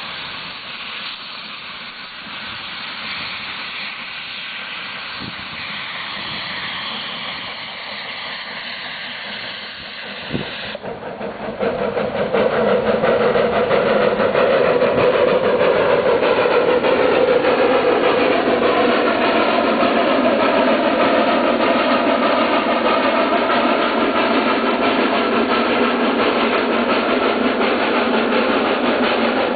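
Snowdon Mountain Railway rack steam locomotive hissing steam, then about ten seconds in getting under way and working loudly and steadily as it pushes its carriage up the start of the climb.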